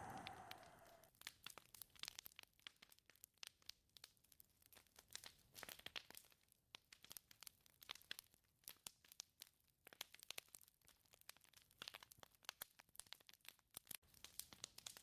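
Faint scattered crackling and ticking, many small irregular clicks. A gust of wind dies away in the first second and starts rising again near the end.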